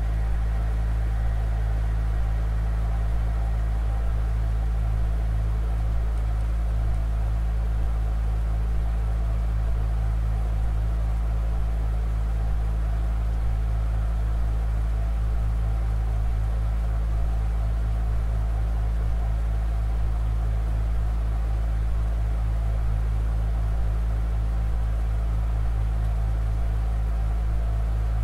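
Steady low drone held without change, with a fast beating flutter in its lowest tones and fainter steady tones above. It is made of sustained low organ tones layered with a field recording.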